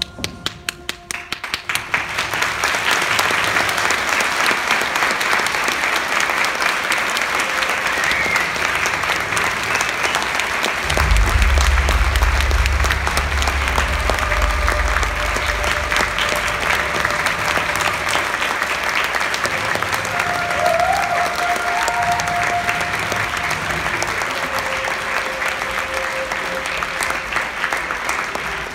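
Theatre audience applauding: a few scattered claps build within a couple of seconds into dense, sustained applause. A low rumble comes in for a few seconds about a third of the way through.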